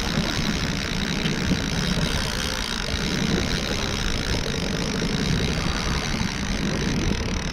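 Mercury outboard motor running steadily at low trolling speed, mixed with wind rumble on the microphone.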